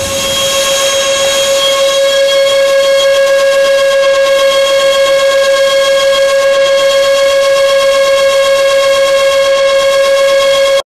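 Twin electric ducted fans of an E-flite F-15 model jet held at full power on a static thrust test, in stock form without cones in the exit ducts: a loud, steady high whine with a ladder of overtones. It cuts off suddenly near the end.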